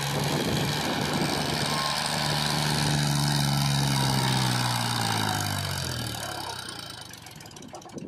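Powertrac 434 DS Plus tractor's three-cylinder diesel engine running as it pulls a trailer loaded with mud. The engine note drops in pitch and fades away over the last two seconds or so.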